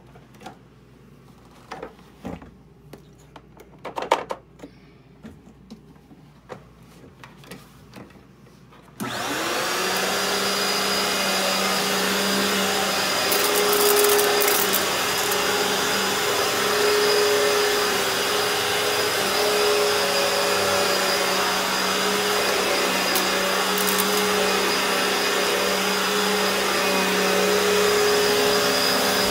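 A few clicks and knocks, then about nine seconds in a Eureka The Boss upright vacuum cleaner switches on abruptly and runs steadily with a constant hum and whine as it is pushed over carpet. It is a cheap secondhand machine given a makeshift repair, running and picking up.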